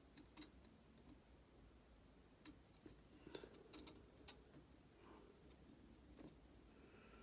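Near silence with scattered faint small clicks and ticks as fine wires are tugged and a soldering iron is worked at a model locomotive motor's terminals during desoldering.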